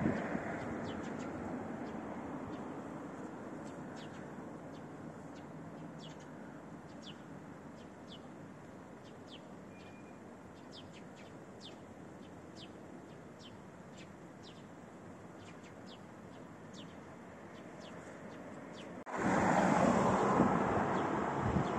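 A bird calling over and over with short, high, falling chirps above a low traffic rumble that fades away. About nineteen seconds in, loud traffic noise cuts in suddenly.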